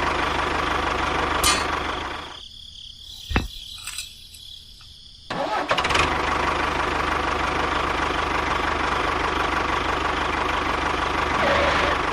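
A small engine running steadily. It drops away for about three seconds, with a single click in the gap, then runs again.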